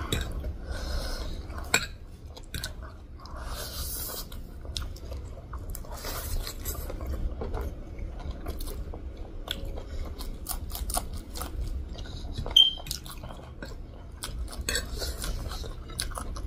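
Close-up eating sounds of two people eating stir-fried noodles: wet chewing and the occasional slurp, with a metal fork clinking and scraping on a ceramic plate in many short clicks. A brief high squeak stands out about two-thirds of the way in.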